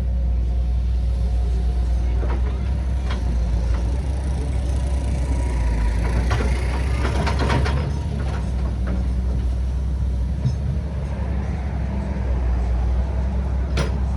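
Heavy diesel construction machinery, an excavator working with dump trucks, running with a steady low rumble. A cluster of clattering knocks comes about six to eight seconds in, and a single sharp knock near the end.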